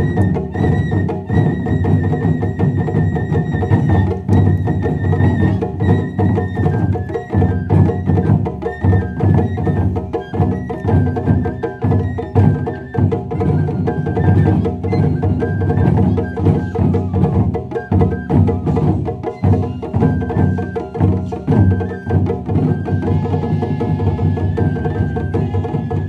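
Japanese taiko drum ensemble playing a fast, dense rhythm of heavy drum strokes, starting abruptly at the outset. A high melody of held notes runs above the drums.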